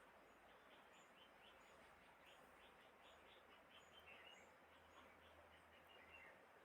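Near silence: faint background hiss with faint, short high-pitched chirps repeating throughout.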